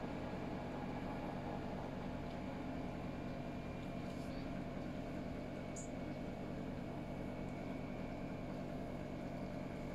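A steady low electrical hum with a faint thin whine above it, unchanging throughout, and a brief light tick about six seconds in.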